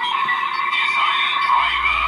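DX Desire Driver toy belt playing an electronic sound effect through its small built-in speaker, set off by a press on the driver; it fades out near the end.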